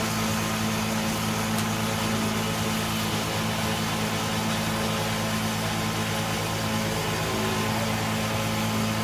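Wood lathe running with a steady low motor hum while a hand chisel cuts the spinning wooden egg, adding a continuous scraping hiss.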